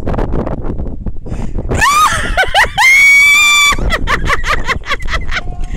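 A man screaming in fright as he drops off the platform on a gorge jump. Wind buffets the microphone at first. About two seconds in, a sharp rising yell breaks into a long, high, held scream, followed by a quick string of short cries.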